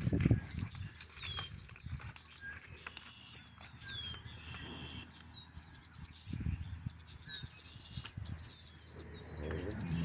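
Several birds chirping and singing, with short calls scattered throughout. A couple of brief low rumbles come in, one at the very start and one about six and a half seconds in.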